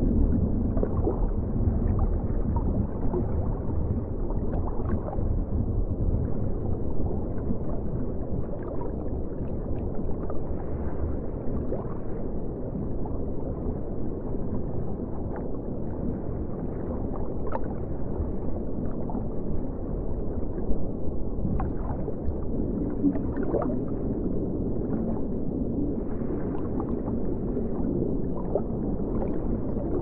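Steady low rumble of moving water in a large aquarium tank, with faint scattered clicks and brief tones over it.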